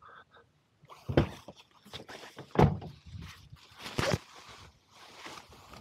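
Fabric exterior windscreen cover being pulled and handled on a camper van: a series of sudden flaps, knocks and rustles, with three loud ones.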